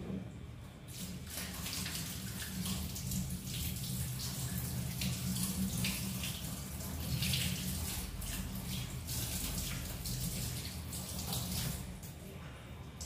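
Kitchen tap running onto a raw salmon fillet held under it in a stainless steel sink, the water splashing unevenly as the fish is turned and rinsed. The water starts about a second in and stops near the end.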